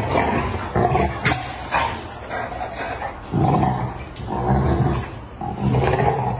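Dog growling in several short, rough rumbles, with two sharp clicks about a second in.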